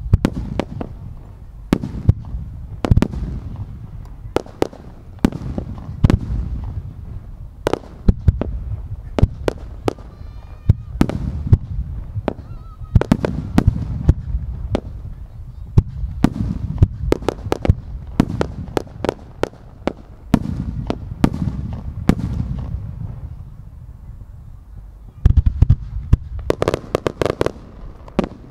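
Aerial firework shells bursting one after another, each a sharp report with a low rumble trailing between them. Near the end comes a dense run of rapid crackling bursts.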